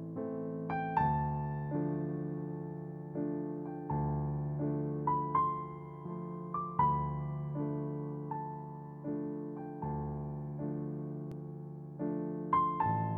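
Background music on an electric piano: slow, sustained chords struck about once a second, with a few higher melody notes.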